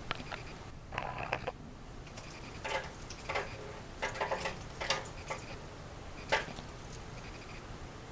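A cat's rattle ball toy rattling in several short bursts as it is batted and rolls about.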